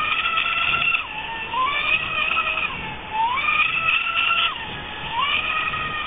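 Radio-controlled model boat's motor whining at high revs as the boat runs and turns, its pitch dipping and climbing back up every second or two, three times over.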